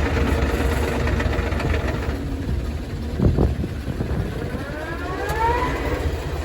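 Bulldozer engine running under load, with a thump about three seconds in and a rising whine near the end. The engine is struggling on a clogged fuel supply, which the owner thinks calls for a new fuel pump.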